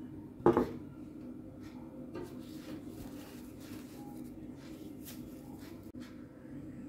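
A single sharp knock about half a second in, then soft crinkling and rustling as a foam packing sheet is pulled out of a portable gas stove's casing.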